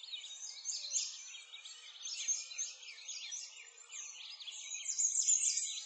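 Chorus of many small songbirds chirping and twittering, with rapid overlapping high chirps and trills that grow loudest about five seconds in.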